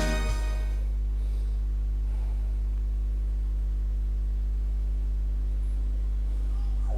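A steady low hum of several held tones, as the music before it fades out in the first moment.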